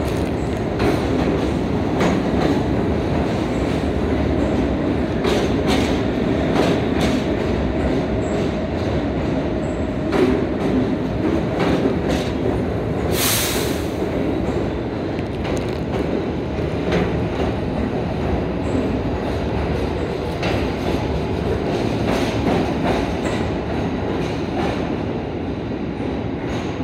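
New York City subway train pulling out of an underground station and running past close by, a steady rumble with its wheels clicking over rail joints and a short loud hiss about halfway through. The sound eases slightly near the end as the train heads into the tunnel.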